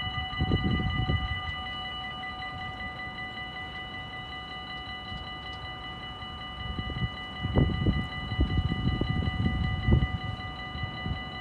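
Dutch level-crossing warning bell ringing steadily while the barriers lower and stay closed, the signal that a train is approaching. Bursts of low rumble come and go, loudest between about seven and ten seconds in.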